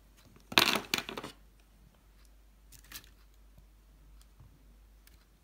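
Plastic makeup tubes and small cosmetic pots being handled and knocked together: a short clatter about half a second in, then a faint click or two around three seconds.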